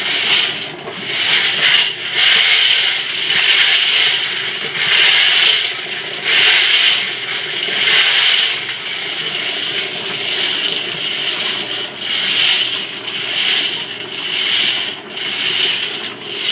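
A pile of over-wetted pyrotechnic stars sliding against the inside of a turning polished stainless steel roller drum: a swishing rub that swells and fades about every one and a quarter seconds, with a steady low hum underneath. The stars are slipping on the smooth steel instead of cascading: the drum gives them no traction.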